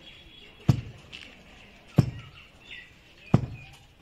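A heavy wooden pestle thudding down into rice flour in a wooden mortar, three deep knocks at a slow, even pace of about one every 1.3 seconds: rice being hand-pounded into flour. Birds chirp faintly in the background.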